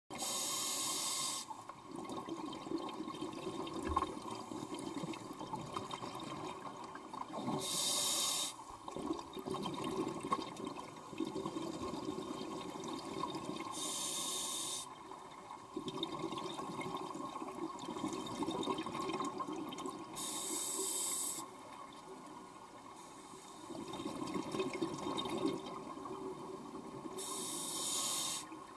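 A scuba diver's regulator breathing underwater. There are five short hissing inhalations through the demand valve, about every six to seven seconds, and between them a long bubbling exhalation.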